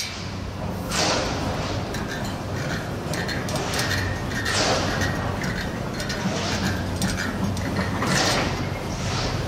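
Steel bicycle spokes clinking and scraping as they are threaded by hand through the holes of a rear hub's flange while lacing a wheel. There are several short metallic scrapes over a steady low hum.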